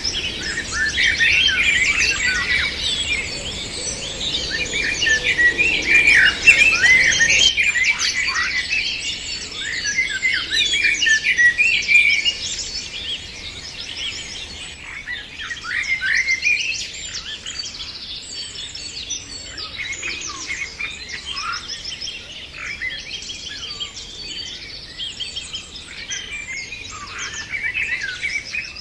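A chorus of many birds chirping and singing over one another, dense and loud for the first dozen seconds, then thinner and quieter.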